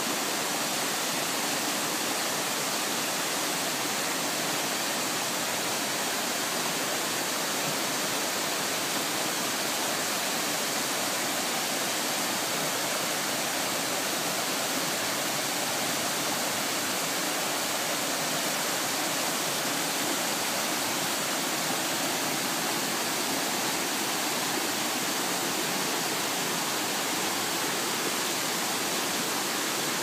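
Small waterfall cascading down a rocky creek over boulders into a pool: a steady, unbroken rush of falling water.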